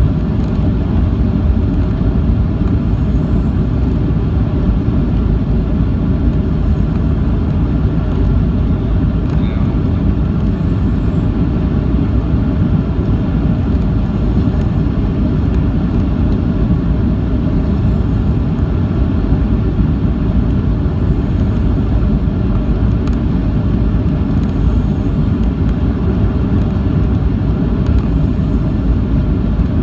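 Jet airliner cabin noise on approach with flaps extended: a loud, steady low rumble of engines and airflow, with faint steady whining tones over it.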